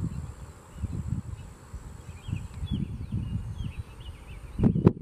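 Outdoor field ambience: irregular low rumbling of wind on the microphone, with small birds chirping in the middle, and a short loud thump near the end.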